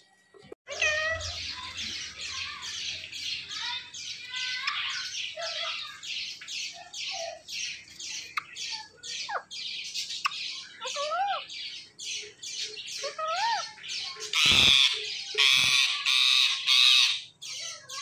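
Indian ringneck parakeets screeching in a rapid run of short, harsh calls, about three a second, starting just under a second in. A few rising-and-falling whistled notes mix in, and the calls are loudest near the end.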